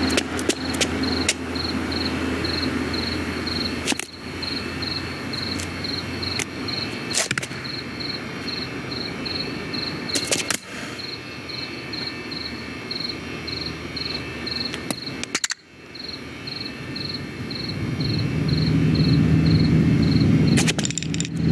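Crickets chirping in an even rhythm, about two chirps a second, over steady night-time background noise with a few sharp clicks. Near the end a low engine drone grows louder, a vehicle approaching.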